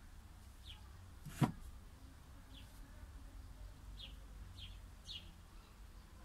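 A bird chirping: short, high, falling chirps, about five of them at uneven gaps. A single sharp click about one and a half seconds in is the loudest sound, over a low steady rumble.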